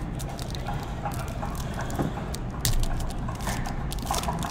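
Trading cards being handled and flipped through, with scattered light clicks and rustles over a steady low background hum.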